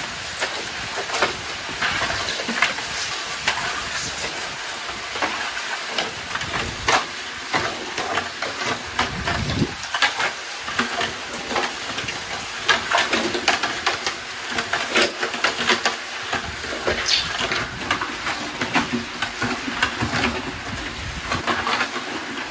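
Concrete pan mixer running, its paddles churning a gravel and cement mix with a continuous gritty rattle, broken by frequent clicks and knocks as buckets are handled and emptied into it.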